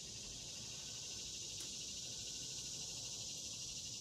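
Steady, high-pitched chorus of insects, with one faint click about a second and a half in.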